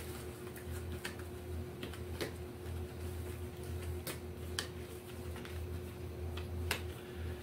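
Irregular light clicks and taps from a 1928 Royal Model P portable typewriter's metal parts being handled during a ribbon replacement, over a steady low hum.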